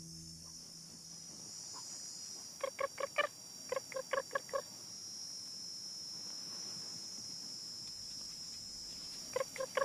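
Meerkats calling: two quick runs of short, sharp chirps, four notes and then five, a few seconds in, and another run near the end, over a steady high-pitched background drone.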